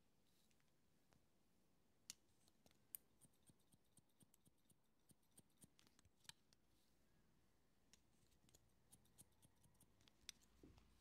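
Barber's haircutting scissors snipping through hair in soft, crisp snips. There is a quick run of snips about three to five seconds in, then more spaced-out snips.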